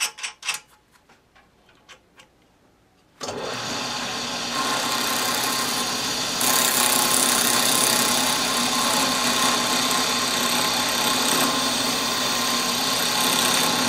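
A few light clicks, then about three seconds in a drill press motor switches on and runs steadily with an even hum. It grows louder around six seconds in as the end-mill cutter takes a shallow first pass across the maple and ebony banjo bridge blank clamped in its jig.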